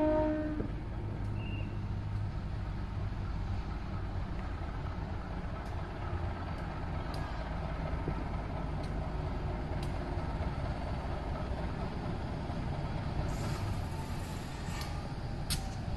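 Diesel-electric locomotive of a KAI passenger train running as it approaches slowly, heard as a steady low engine rumble.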